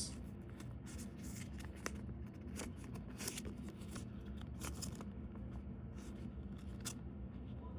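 Paper rustling with scattered light clicks as folded paper manuals and packaging are handled, over a faint steady low hum.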